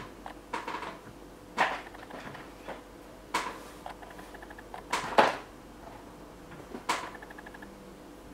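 Handling noises of a curling wand being picked up and worked into the hair: about half a dozen sharp clicks and knocks, a second or so apart, the loudest near the middle.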